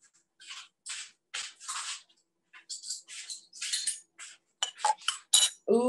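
Spoon and kitchenware being handled: a string of short clinks, scrapes and rustles spread unevenly, with a brighter clink near the end.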